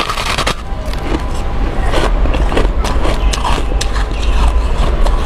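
Close-up biting and chewing of a frost-covered block of ice: dense, irregular crunches and crackles as the ice breaks between the teeth, over a steady low rumble.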